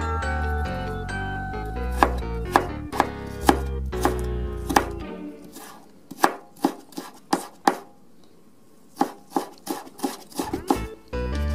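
Kitchen knife mincing ginger on a plastic cutting board: a run of sharp chopping strokes, about two a second, with a short pause partway through. Background music plays under the first half, drops out about halfway, and comes back near the end.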